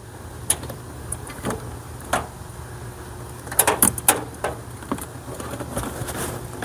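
Insulated hookup wires being handled and pulled from a coil: scattered light rustles and small clicks, with a busier cluster about halfway through, over a steady low background hum.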